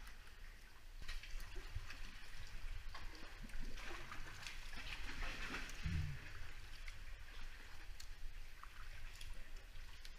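Kayak paddle strokes and water splashing and gurgling along a sea kayak's hull, with a brief low thump about six seconds in.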